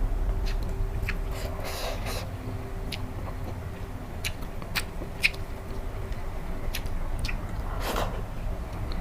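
Close-miked chewing of egg curry: wet mouth clicks and smacks scattered irregularly, with two longer noisy sounds, one about two seconds in and one near the end.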